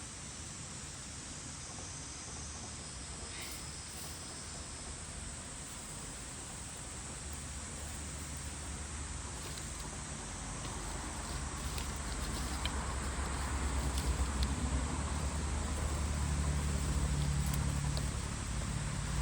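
Outdoor ambience of steady insect chirring, with a low rumble that grows louder in the second half and a few faint clicks.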